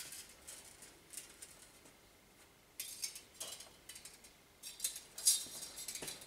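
Steel bandsaw blade being twisted by hand into coils, its loops and teeth clicking and rattling against each other. A few light clicks come first, then after a short pause a busier run of metallic rattling that peaks near the end.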